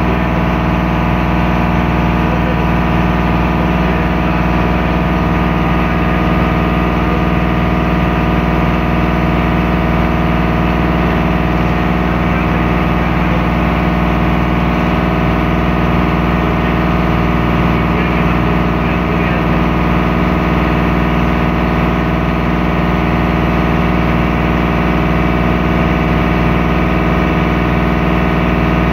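Motorboat engine running steadily under way, heard close up from inside the boat's cabin: an even, unchanging engine hum.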